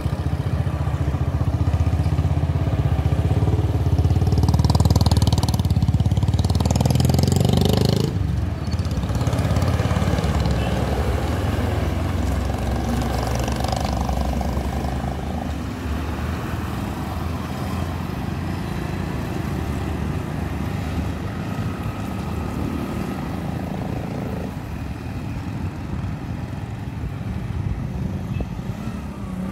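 Traffic on a hill road: a midi bus's engine runs loud and low through roughly the first eight seconds, then drops off abruptly. A steadier, lower hum of passing motorcycles and cars follows.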